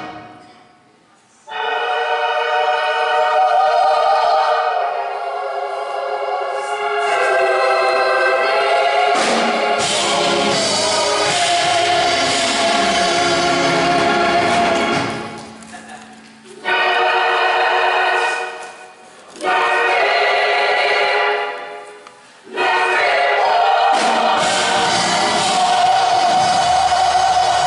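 Church choir singing long, held chords, with brief breaks between phrases.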